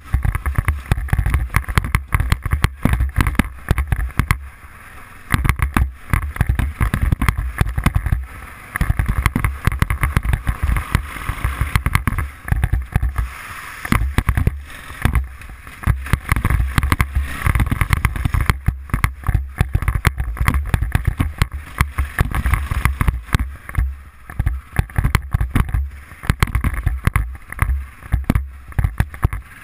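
Arctic Cat 500 ATV's single-cylinder engine running while the quad is ridden over rough gravel. It is heard through a GoPro with heavy wind buffeting and bumps on the microphone, which make it rumbling and choppy. The level drops briefly a few times.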